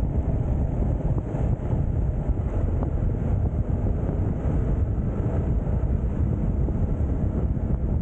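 Wind rushing steadily over the microphone of a camera on a moving motorcycle, blended with the bike's running and road noise.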